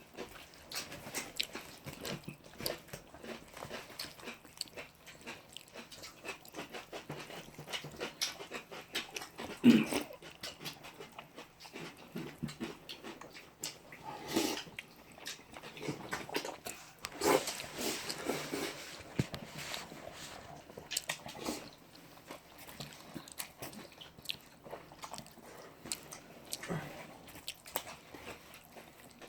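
Eating at close range: a steady run of chewing, biting and mouth-smacking clicks. There is a sharp loud smack just before ten seconds in and a denser stretch of noisy eating sounds around seventeen seconds.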